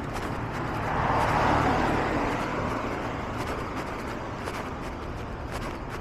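A car passing on the street: its tyre and engine noise swells to a peak about a second and a half in, then fades away.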